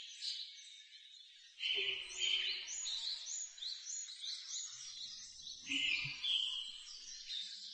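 Birds chirping and singing, a continuous run of short, high, repeated calls. Two softer, lower sounds come in about two seconds in and again around six seconds.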